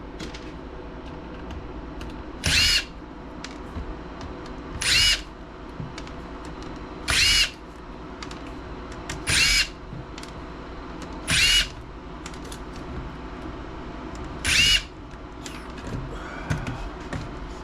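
Small power driver spinning in short bursts, six times at roughly two-second intervals. Each run lasts about half a second, with a whine that shifts in pitch.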